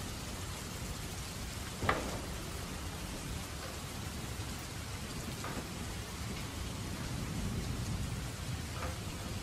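Steady rain falling, a continuous even hiss, with one sharp knock about two seconds in and a few fainter clicks later.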